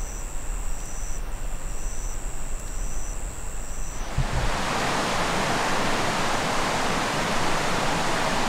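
A high steady tone and a faint high chirp about once a second over a low rumble, then, about four seconds in, an abrupt change to the steady rush of a river.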